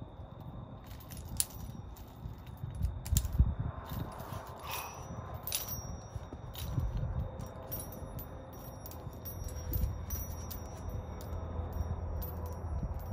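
Scattered light clinks and knocks from workout gear being handled on the ground, most of them in the first half. Underneath runs a steady high chirring of night insects and a low rumble.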